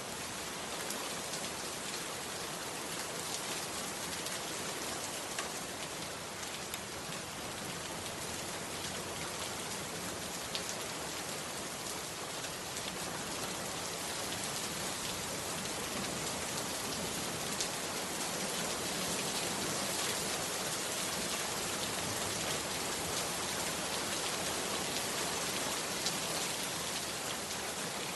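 Heavy rain pouring steadily, with scattered sharper drop impacts standing out from the dense patter.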